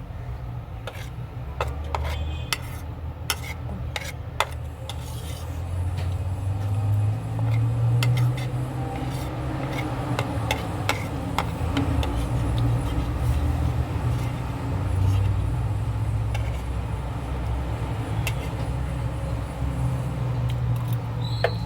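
A metal spoon clicking and scraping on a plate of egg fried rice while eating, in scattered sharp taps, over a steady low rumble.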